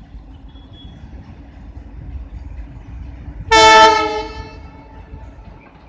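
Indian Railways Alco diesel locomotive sounding its horn: one short, loud blast about three and a half seconds in that cuts in suddenly and fades over a second, over the low rumble of the train running.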